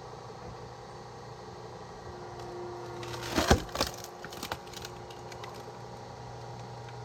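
Hydraulic log splitter running with a steady hum while its wedge shears the bark-side edge off a thick larch log. A burst of wood cracking and splintering comes about three and a half seconds in, followed by a few smaller cracks.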